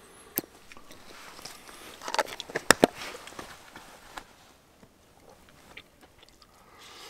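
Plastic squeeze bottle of honey mustard squirting and sputtering onto a plate, followed by two sharp clicks close together about three seconds in.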